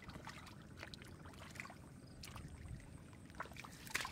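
Hands splashing and squelching in shallow muddy water: a run of small wet splashes and drips, with a couple of sharper splashes near the end.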